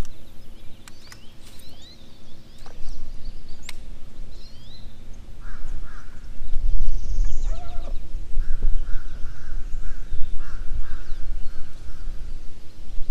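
Birds calling: scattered short chirps, then a run of repeated calls in the second half, over a steady low rumble that grows stronger about halfway through.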